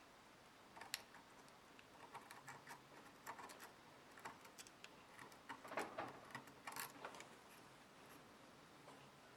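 Faint, irregular small scrapes and clicks of a blade shaving hardened kokuso (lacquer-and-wood-flour putty) on a chipped ceramic sake cup. The strokes come thickest around the middle and thin out near the end.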